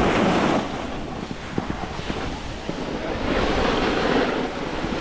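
Snowboard sliding over hard, icy snow, a hissing scrape that swells twice, at the start and again about three seconds in, with wind rushing over the camera microphone.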